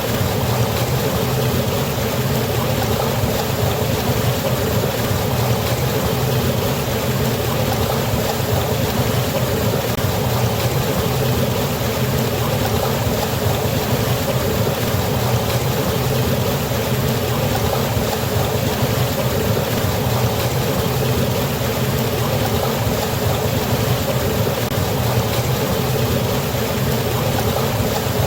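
Waterfall water rushing steadily, an even continuous wash with a deep low rumble under it.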